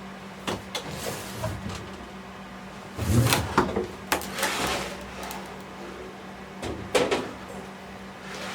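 Irregular knocks, clunks and scraping of workpieces or tools being handled, loudest about three seconds in and again near seven seconds, over a steady low hum.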